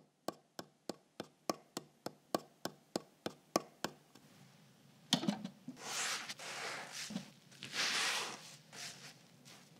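Animation sound effects: a steady run of light sharp ticks, about three a second, for the first four seconds, then a few knocks and two long brushing swooshes, like a wide paintbrush swept across a surface.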